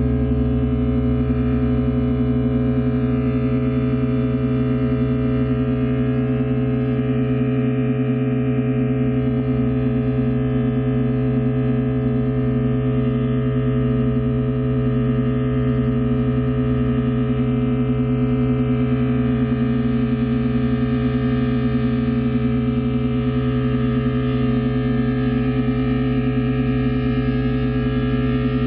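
Sustained drone of many steady, layered tones from a guitar-and-MIDI-controller and balloon duo, held unchanged, with one middle tone wavering slightly.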